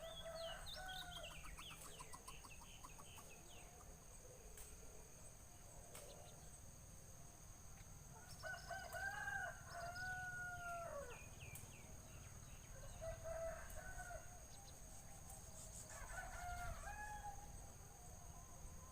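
Rooster crowing, four times, the longest crow about halfway through. Short high chirps of small birds come in between the crows.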